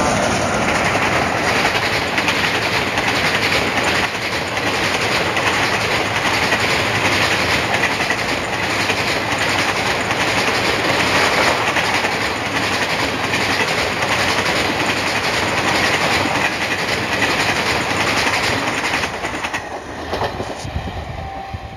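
A WAP-4 electric locomotive and its passenger coaches rush past at speed, the wheels clattering over the rail joints in a steady clickety-clack. The noise fades over the last couple of seconds as the train draws away.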